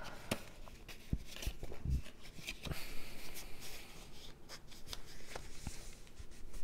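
A piece of white cardstock being folded and creased by hand: rustling of the stiff paper with scattered soft clicks, then pressed flat against the table.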